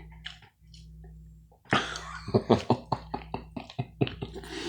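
Close-miked mouth sounds of eating: a short breathy burst, then a quick run of sharp clicks and smacks from chewing.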